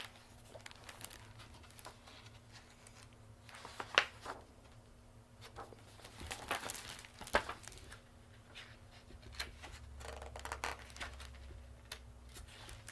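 Pages of a picture book being handled and turned: soft paper rustling with a few sharp snaps, the loudest about four and seven seconds in.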